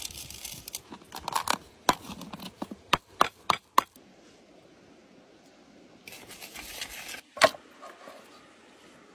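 Mixed peppercorns pattering into a wooden bowl, then a run of sharp knocks and cracks as they are crushed in the bowl. Later comes a rustling handling sound and one loud sharp knock.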